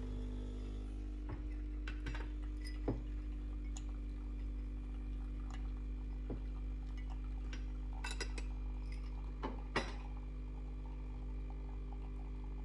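Espresso machine's pump humming steadily while brewing a shot, coffee running from the spouts into a mug. Light clinks of a small glass jar being handled over it, a few scattered and a cluster about eight to ten seconds in.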